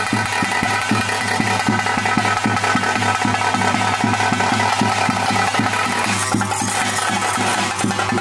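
Traditional bhuta kola ritual music: fast, even drumming at about five strokes a second over a steady, held reed-pipe tone.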